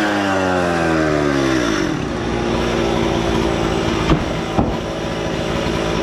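An engine's revs falling away over the first two seconds and settling into a steady run, with two short sharp knocks about four and four and a half seconds in.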